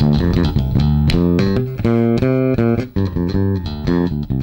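Music Man StingRay 4 electric bass played through a Markbass Little Mark Tube 800 amp head, a plucked bassline of quickly changing notes with sharp attacks. The amp's VLE knob is turned up, cutting the top off the tone.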